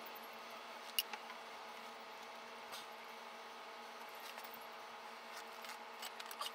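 Faint clicks and taps of PVC pipe fittings being handled, the sharpest about a second in, over a steady faint hum.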